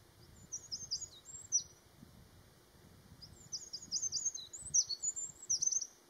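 Eurasian wren singing: two phrases of rapid, high-pitched notes and trills. A short phrase comes near the start and a longer one from about three seconds in.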